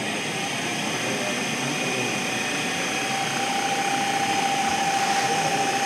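Wood lathe running with a wooden blank spinning freely, no tool cutting: a steady mechanical hum and hiss, with a steady whine coming in about halfway through.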